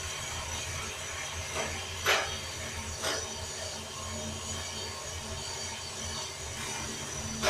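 Prototype drum coffee roaster running with green beans tumbling in the drum: a steady mechanical hum and rattle, broken by a few short sharp snaps, the loudest about two seconds in.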